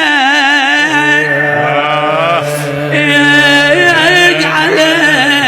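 A man's voice chanting a Shia elegy (latmiya) in Iraqi Arabic, drawing out long melismatic notes with heavy vibrato and sliding pitch, over a steady low held note.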